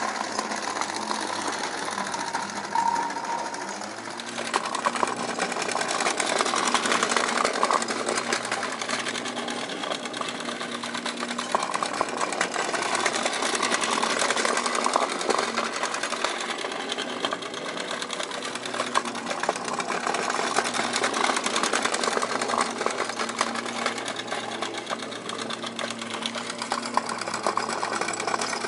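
Mamod model steam tractor running under live steam, its small single oscillating cylinder chuffing in a rapid, steady patter with a light mechanical rattle.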